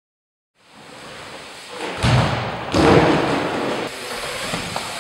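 After a moment of silence, the sound of an indoor skatepark fades in, and then come two heavy thuds, about two seconds and just under three seconds in, typical of BMX bikes landing on the wooden ramps.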